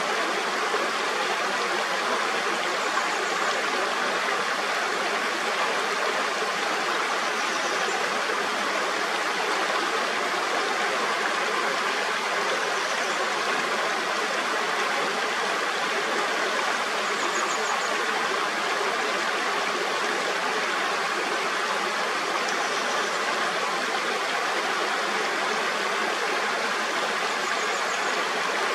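Mountain stream rushing and babbling steadily over rocks, with faint high chirps recurring about every five seconds.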